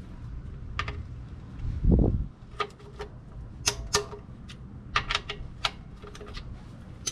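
A 3/8-inch ratchet with a socket on an oil pan drain plug, clicking in short irregular runs as it is worked back and forth to loosen the plug. A low thump comes about two seconds in and is the loudest sound.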